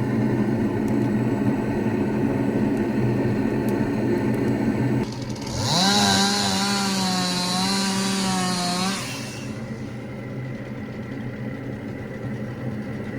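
Steady machine hum; about five seconds in a small motor spins up to a high steady whine with a strong hiss for about three seconds, then drops away, leaving a quieter steady hum.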